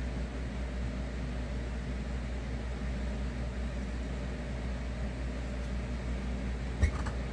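A steady low machine hum with a faint hiss, and one short knock about seven seconds in.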